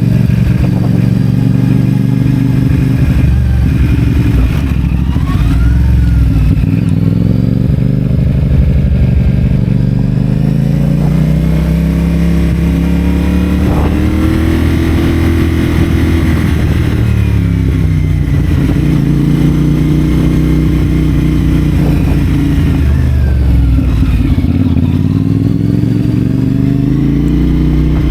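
CFMoto 450SR's parallel-twin engine through a Yoshimura AT2 slip-on exhaust, the bike riding along and accelerating and easing off several times. Its pitch climbs, then drops at each gear change or roll-off.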